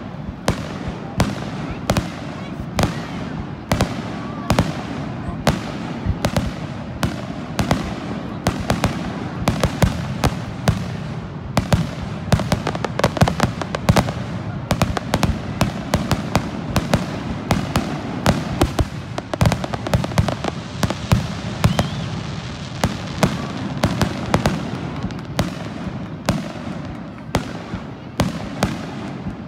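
Aerial fireworks display: a dense, continuous series of bangs from bursting shells, several a second, over a low rumble.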